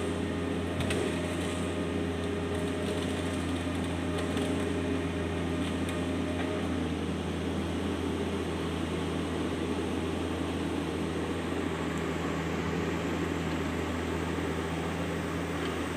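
Hitachi Zaxis 200-5G excavator's diesel engine running steadily, a constant low drone with a slight change in the low hum about six and a half seconds in.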